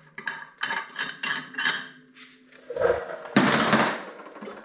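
Ski-Doo drive clutch being wiggled off the crankshaft by hand: metal clanks, knocks and scrapes, loudest in a sharp metallic clatter about three and a half seconds in.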